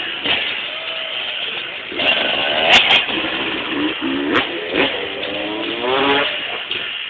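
Motocross bike's engine revving in repeated rising surges as it accelerates for a ramp jump, with a few sharp clicks.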